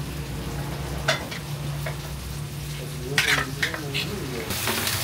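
Dishes and cutlery clinking a few times over a steady low hum; about four and a half seconds in the sound switches to the steady hiss of eggs frying in tomato in a pan.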